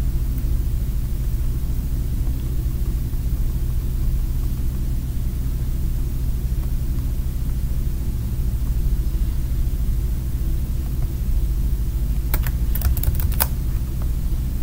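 Steady low background hum, with a quick run of sharp computer clicks about twelve seconds in.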